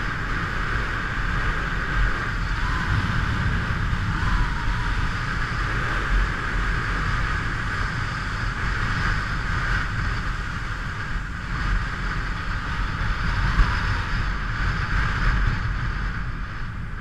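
Motorcycle on the move: a steady rush of wind over the camera microphone with a low engine and road rumble underneath.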